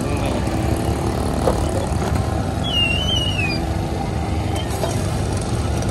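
Steady low rumble of roadside background noise, with one short wavering high squeak about three seconds in.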